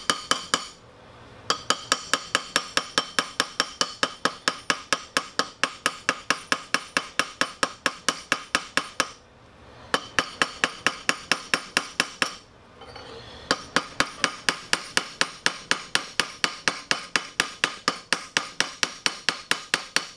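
Ball peen hammer rapidly striking a steel rivet on an AK-pattern bolt carrier resting on a steel vise anvil, peening the rivet head over to fix the gas piston to the carrier. Sharp metallic clinks at about four to five blows a second, in runs broken by a few short pauses.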